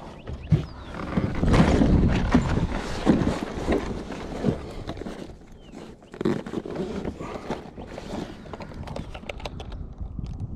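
Irregular knocks, clicks and rustling from fishing gear and a fish being handled in a plastic kayak, with low rumbling handling noise on the microphone.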